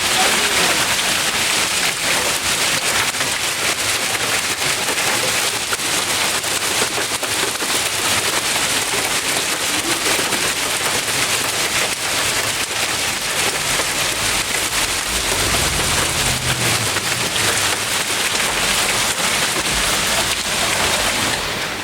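Heavy hail pelting down: a dense, steady clatter of countless hailstones striking surfaces.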